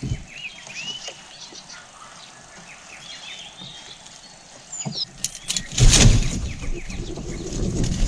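Small birds chirping, with many short quick sweeping notes. About five to six seconds in there is a loud rustling burst with a low rumble.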